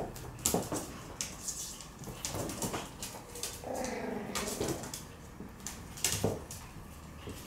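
Shiba Inu puppy tugging at a rope, with sharp clicks and knocks from its claws and the jerked rope on the metal floor sheet and wire shelf, and a short growl a little after halfway.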